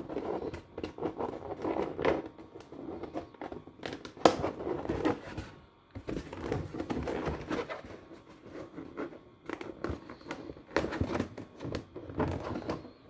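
Thin plastic panels of a flat-pack folding shoe rack being handled and folded by hand: irregular rubbing and scraping with scattered clicks, and one sharper click about four seconds in.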